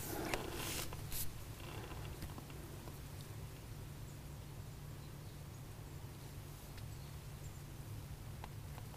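Quiet outdoor background: a steady low rumble, with a few faint rustles and light clicks in the first second or so and again near the end.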